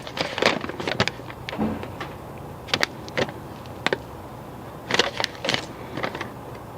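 Small metal brake-pad hardware clips clinking and rattling as they are handled, a series of irregular sharp clicks.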